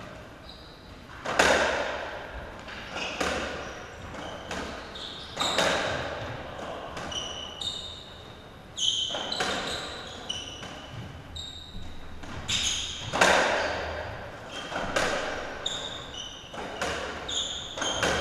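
A racketball rally: the ball struck by rackets and hitting the court walls, each hit ringing out with a long echo, about every one to two seconds. Short high squeaks of shoes on the court floor come between the hits.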